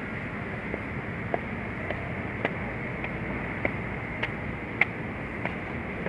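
Footsteps climbing stone steps and then crossing stone paving: a sharp click about every 0.6 seconds at a walking pace, over steady outdoor background noise.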